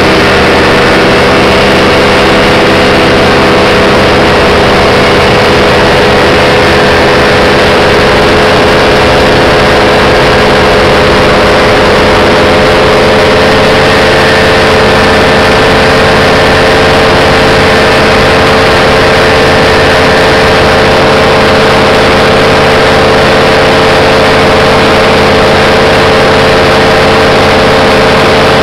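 Engine of a small aircraft running steadily at close range, very loud, its pitch sinking slightly over the stretch.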